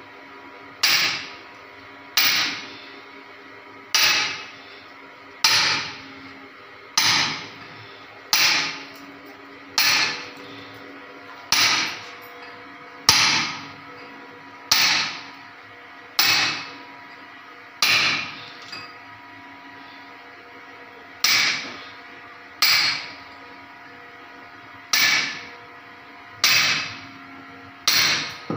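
Hammer striking a steel chisel to cut into masonry at the foot of a wall, one blow about every one and a half seconds, each a sharp metallic knock that rings briefly. The blows stop for about three seconds a little past the middle, then carry on at the same pace.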